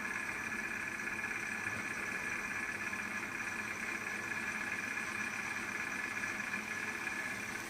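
Izola Apollo 636W washing machine running with a steady hiss and hum while its drum is still.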